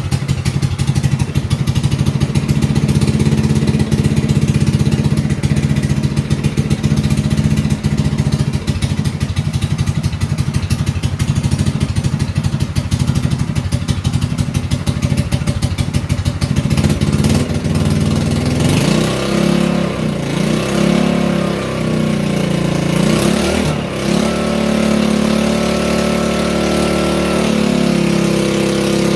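Mini bike's engine running loud with no muffler, first with rapid, uneven firing pulses. From about two-thirds in it is revved up and down several times, held at a higher speed, then drops back near the end.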